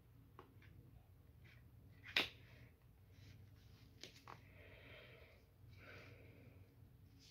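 Near silence with faint handling of tarot cards: a few small clicks, the sharpest about two seconds in, and a soft rustle a little after the middle.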